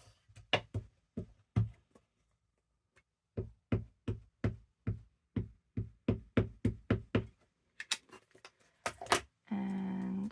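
Quick run of light knocks and taps, about three or four a second, from rubber-stamping supplies being tapped and set down on a craft desk. A few sharper clicks follow near the end.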